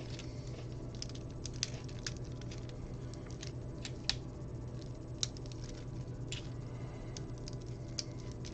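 Small plastic Lego pieces being handled and pressed together: scattered light clicks and taps at irregular intervals, over a steady low hum.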